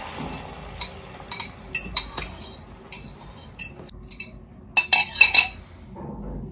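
Metal fork scraping and tapping against a bowl as beaten egg is scraped out into a pan, with scattered clinks. About five seconds in comes a quick run of louder clinks.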